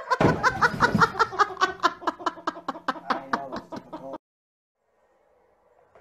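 A person laughing hard in a rapid, high-pitched run of bursts that slowly falls in pitch, cut off abruptly about four seconds in. Faint room noise follows.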